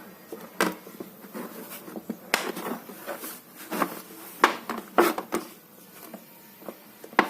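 Irregular knocks and taps of a metal baking pan being handled as a baked sponge cake is turned out of it, about seven sharp hits spread unevenly.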